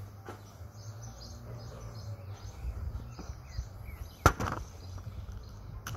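Faint bird chirps over a low steady hum, with one sharp click a little past the middle and a smaller one near the end.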